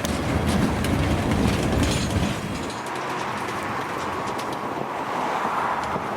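Freight train cars rolling past, wheels clicking over the rail joints. The heavy low rumble eases about two and a half seconds in, leaving a lighter rolling sound with a rising hiss.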